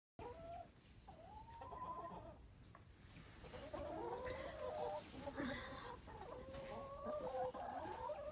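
Chickens clucking with drawn-out, wavering calls, several voices overlapping in the middle.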